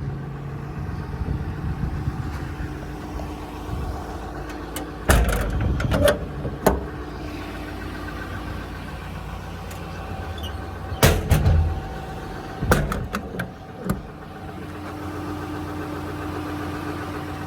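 6.7 Cummins diesel idling steadily, with several loud clunks and knocks in three groups, about five, eleven and thirteen seconds in.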